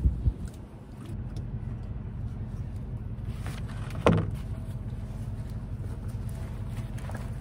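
Gear and hands knocking against a canoe as it is loaded: a few knocks at the start and one sharp knock about four seconds in that rings briefly, over a steady low rumble.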